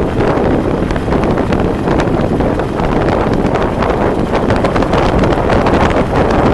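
Steady, loud wind buffeting a moving camera's microphone, with a low rumble of the vehicle and road underneath and frequent crackles from gusts hitting the mic.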